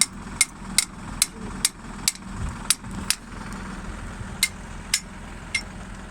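Hose-reel irrigation machine running: sharp regular clicks, about two to three a second, over a steady engine hum. The clicks pause for about a second near the middle.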